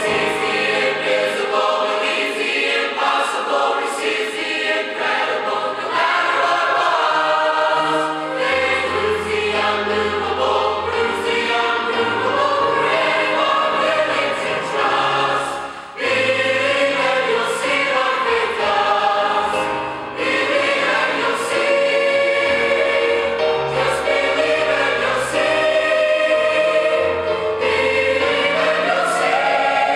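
Mixed choir of men's and women's voices singing a gospel song in parts, with low bass notes coming in about eight seconds in.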